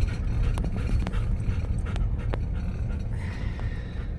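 Low road and engine rumble inside a car's cabin as it drives slowly, with a few sharp clicks or taps in the first couple of seconds.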